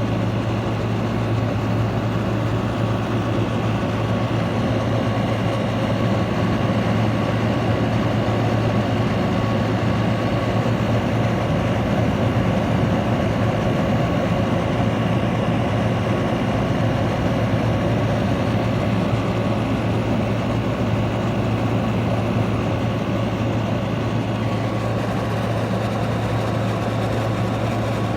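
Frigidaire 10,000 BTU window air conditioner running steadily, its compressor humming under the rush of the fan's air, with the evaporator frozen over.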